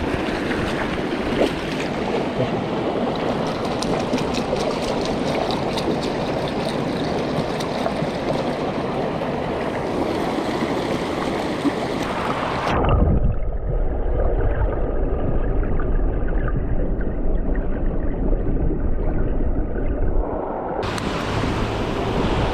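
Mountain river water rushing steadily. From about thirteen seconds in, for some eight seconds, the sound turns muffled, the highs gone and a heavy low rumble in their place, before the open rush of the water comes back.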